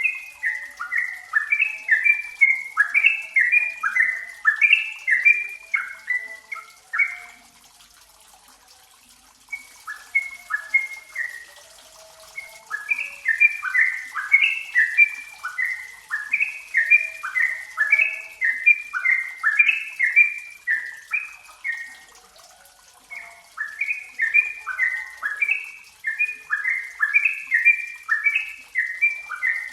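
Yellow-vented bulbul singing: rapid runs of short, bubbly chattering notes, broken twice by pauses of about two seconds, over a faint steady hiss.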